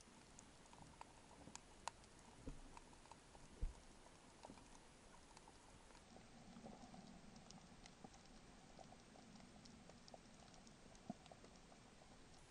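Faint underwater ambience picked up by an action camera: scattered crackling clicks and ticks, with a few sharper knocks in the first four seconds. From about six seconds in a faint low hum joins.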